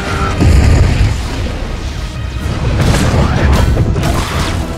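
Superhero film battle sound effects: a deep boom about half a second in, then continued rumbling and crashes of lightning strikes and impacts, over loud orchestral score.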